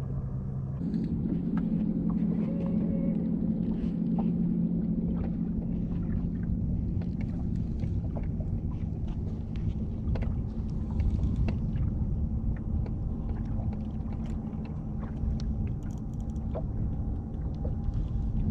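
Steady low mechanical hum aboard a bass boat, stepping up in pitch and loudness about a second in, over water lapping against the hull, with scattered small clicks.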